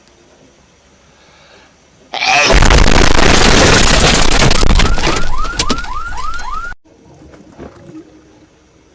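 A sudden, extremely loud, distorted blast of meme sound effect cuts in about two seconds in and stops abruptly near seven seconds. A run of quick rising squeals comes near its end. Faint background noise comes before and after it.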